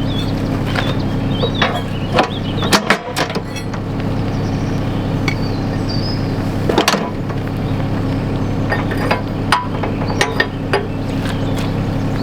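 Mini excavator's diesel engine running steadily under work, with scattered metallic clanks and knocks from the bucket digging through soil and stone, a cluster about two to three seconds in and another near seven seconds.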